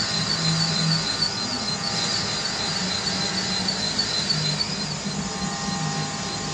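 Valve seat cutter spinning and cutting a valve seat in a Jaguar X300 cylinder head during a valve job: a steady machining noise with a high, slightly warbling whine over a low hum.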